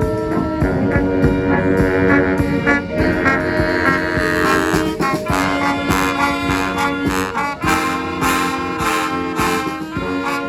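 Brass band playing live: saxophones, trombones and trumpets hold chords and riffs over a steady beat of sharp hits. The hits grow busier and brighter from about five seconds in.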